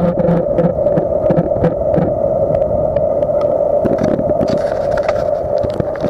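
Riding noise from a moving bicycle: a steady hum with a rattle of clicks and knocks, close together in the first two seconds and sparser after, as the wheels roll off the trestle deck onto the paved trail.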